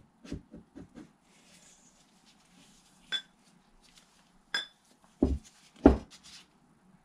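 Cylinder liner with its piston and connecting rod being handled on a workbench: a few light knocks near the start, two ringing metallic clinks about three and four and a half seconds in, then two dull thuds, the loudest, as the liner meets the bench.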